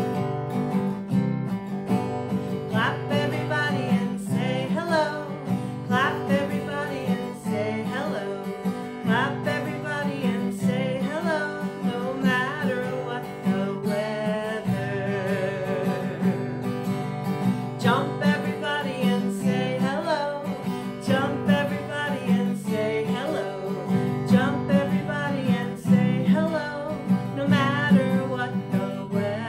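Acoustic guitar strummed in a steady rhythm, with a woman singing a children's hello song over it.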